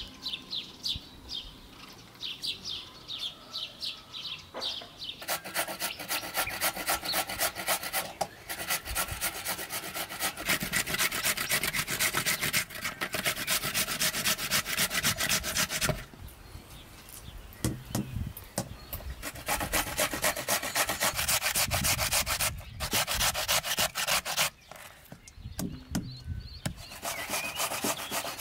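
Raw potatoes being grated by hand on a grater: a long run of quick, rhythmic rasping strokes with a few short pauses. In the first few seconds, before the grating starts, a bird chirps repeatedly.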